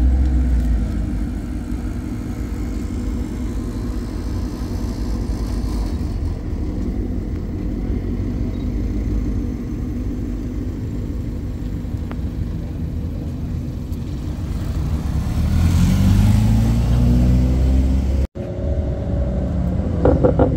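Car engines rumbling low and steady as vehicles roll slowly past; about fifteen seconds in, one engine revs up, its pitch rising over a couple of seconds before the sound cuts off suddenly and another engine takes over.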